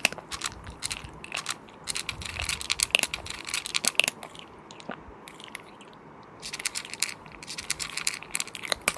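Close-miked eating of cooked sheep's head: rapid, crisp smacking and crunching bites and chewing, in clusters, easing off for a moment a little past halfway before picking up again.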